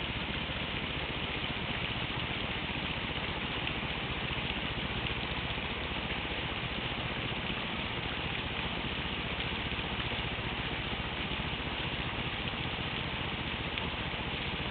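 Running water flowing steadily: an even, unbroken hiss with no pitch or rhythm.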